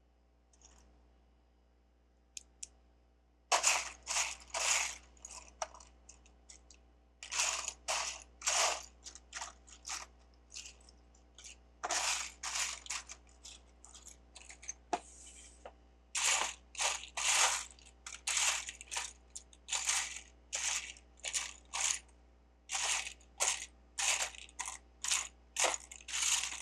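Loose plastic Lego bricks clattering as a hand rummages and sifts through a pile of pieces, in quick irregular bursts of rattling that start a few seconds in and carry on.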